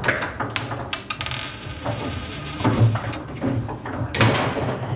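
Table football in play: the ball and the rod-mounted players clacking, with many quick clicks and knocks and a louder clatter about four seconds in.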